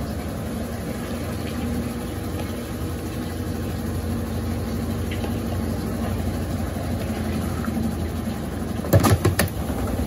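Brastemp Ative 9 kg (BWL09B) washing machine spinning after draining its rinse water, a steady motor hum. About nine seconds in there is a short burst of sharp clattering as a magnet stuck on the machine falls off, leaving the machine vibrating hard.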